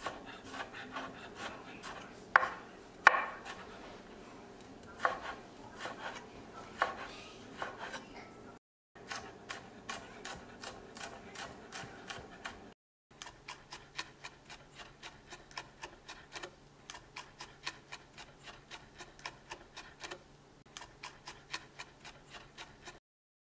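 Chef's knife chopping garlic on a wooden cutting board: quick, even taps of the blade against the board, about three to four a second, with a few louder knocks in the first half. The tapping breaks off twice for a moment and stops just before the end.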